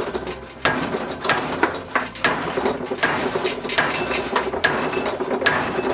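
Kawasaki GPz900R front fork stanchion being slide-hammered out of its fork leg: sharp metal-on-metal knocks about twice a second, each ringing on, as the stanchion is yanked hard against the fork leg to drive out the old fork seal.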